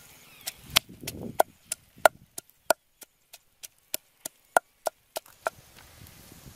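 Wooden pestle pounding in a deep wooden mortar, crushing green chilies: a steady run of sharp wooden knocks, about three a second, that stops a second before the end.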